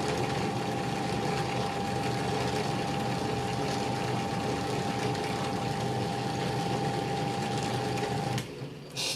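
1930 EXE metal lathe running, a steady whirr of its motor and belt drive with a thin constant whine. It is switched off about eight seconds in and the noise drops away, followed by a short click.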